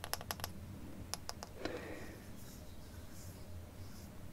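Light, quick tapping on Pokémon card packaging: a run of about five taps at the start and three more about a second in, followed by a soft rustle.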